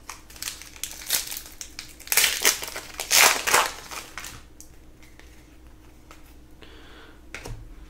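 A trading-card pack's wrapper being torn open and crinkled in the hands, in several short crackly rustles over the first few seconds, then fainter handling.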